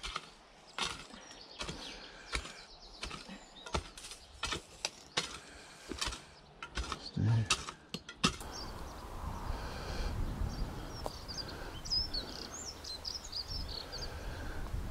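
A run of sharp clicks and knocks for about eight seconds, then, after an abrupt change, wind rumbling on the microphone with small birds chirping repeatedly.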